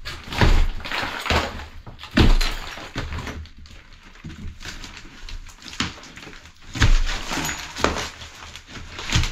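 Tiled plasterboard being torn off a stud wall by hand: several loud cracks and thuds as board and tiles break away, with crumbling and scraping between them.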